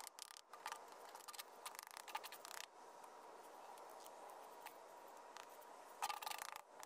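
A hand trowel scraping and spreading gritty sand over a septic riser lid and the dirt around it, in two spells: the first runs about two and a half seconds, and the second is brief, about six seconds in.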